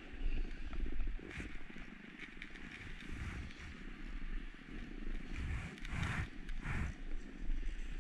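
Continuous hiss and scrape of edges sliding over packed, groomed snow, with a low wind rumble on the microphone; a few louder scrapes stand out, two close together about three-quarters of the way through.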